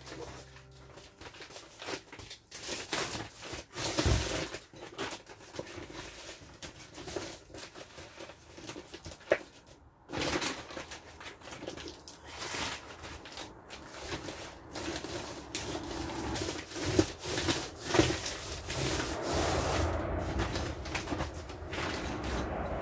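Irregular rustling, rubbing and tapping of a plastic tarp door being handled and pressed down with tape, with a few sharper knocks.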